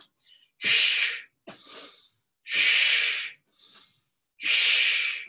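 A woman breathing hard through her mouth while holding a plank: three loud breaths about two seconds apart, with softer breaths between.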